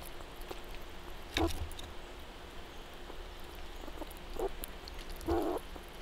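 Squirrels at a wooden feeder: a sharp knock on wood about a second and a half in, then a smaller knock and a short scratching thump near the end, over steady faint outdoor background.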